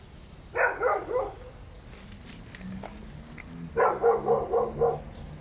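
A dog barking in two quick runs of several barks, about a second in and again near four seconds in, muffled through apartment walls.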